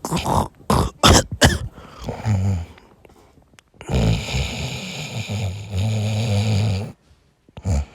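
A person snoring: a few short snorting breaths, then one long loud snore lasting about three seconds.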